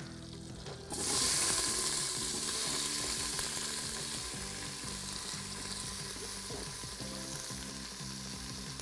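Chopped onion and celery hitting hot butter and olive oil in an Instant Pot on its sauté setting. The sizzle starts abruptly about a second in and then slowly eases off.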